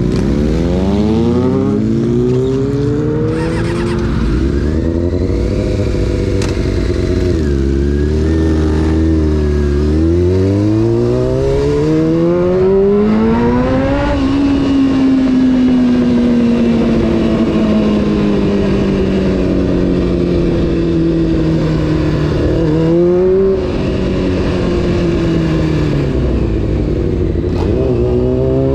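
Honda CBR600 F4's inline-four engine under way, revving through the gears. The revs climb at the start, hold, then climb again to a peak about halfway before falling slowly as the throttle is rolled off. A short blip comes about four-fifths in, and the revs rise again near the end.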